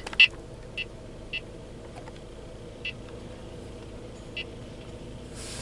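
Radar detector giving about five short, high beeps at uneven intervals after announcing a K-band alert, over the low steady hum of the car's engine idling. A brief rush of noise comes near the end.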